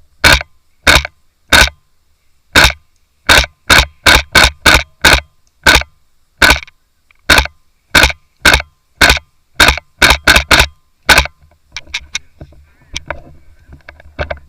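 KJW KC-02 gas blowback airsoft rifle firing about twenty semi-automatic shots in quick, uneven succession, each a sharp crack. After about 11 seconds the firing stops, leaving faint rustling and crackling.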